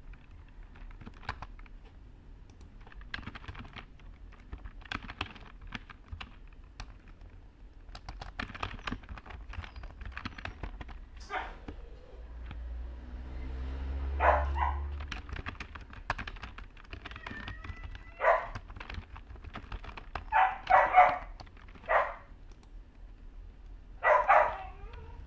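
Typing on a computer keyboard, quick light clicks, with a low rumble swelling around the middle. From about halfway a dog barks several times in the background, single and doubled barks a couple of seconds apart.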